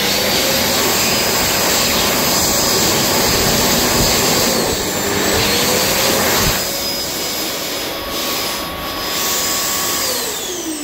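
Stainless steel wall-mounted electric hand dryer blowing hard on a hand: a loud, steady rush of air with a faint motor whine. It gets a little quieter about six and a half seconds in, and the whine falls in pitch near the end.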